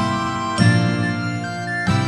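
Background music: instrumental keyboard notes changing about every second or so.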